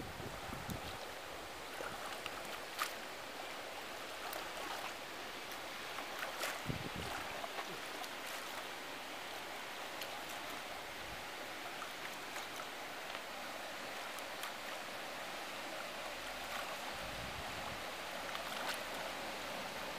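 Pool water splashing and lapping softly around a swimmer, with a few brief sharp clicks.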